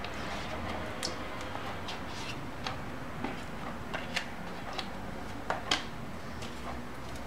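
Irregular light clicks and taps of a plastic spatula scraping soft cream cheese out of a plastic tub and against a stainless steel bowl, two of them louder close together late on. A low steady hum lies underneath.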